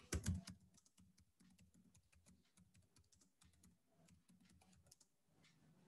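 Faint, quick typing on a computer keyboard: a run of light key taps, several a second, thinning out near the end.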